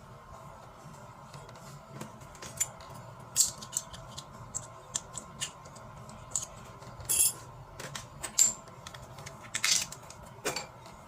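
Irregular small clicks, taps and short scrapes of hard parts being handled, over a steady low hum.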